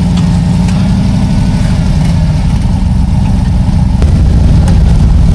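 Off-road vehicle engine running steadily at low revs, with a single sharp knock about four seconds in, after which it gets a little louder.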